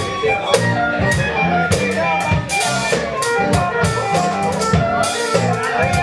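A live funk band playing: a drum kit keeping a steady beat under an electric bass line and guitar, with a wind instrument (saxophone or flute) carrying the melody.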